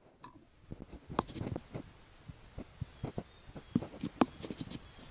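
Irregular light clicks and taps of fingers and small metal parts being handled inside an open ignition distributor, at the breaker points and plate, with a few sharper clicks about a second in and around four seconds in.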